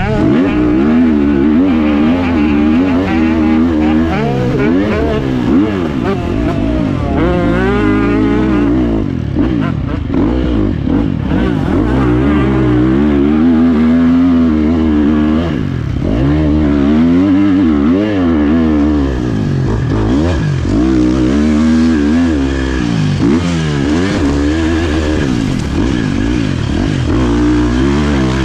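Four-stroke single-cylinder Husqvarna FC 350 dirt bike engine heard from the rider's helmet camera, revving up and dropping off again and again as he works the throttle and shifts gears around the track.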